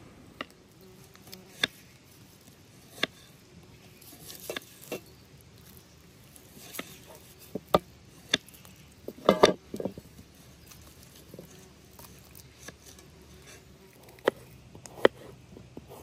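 A knife cutting raw meat on the bone over a metal tray: scattered sharp clicks and taps of the blade, loudest in a quick cluster about nine seconds in.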